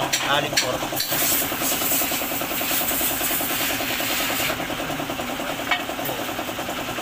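A small engine idling steadily with an even rapid pulse. From about a second in until about four and a half seconds, a hissing scrape sits on top of it.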